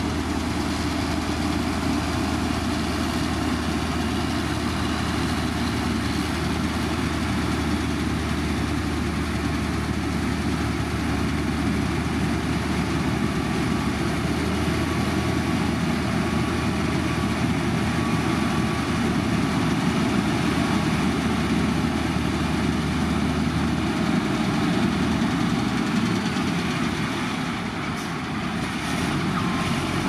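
Diesel engine of heavy road-construction machinery running steadily; its low hum drops away about six seconds before the end.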